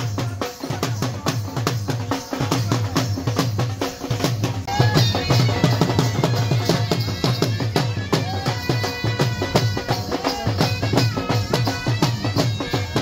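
Dhol drums beaten in a fast, steady dance rhythm, deep booming strokes with sharper stick slaps on top. About five seconds in, a higher, wavering pitched melody joins over the drumming.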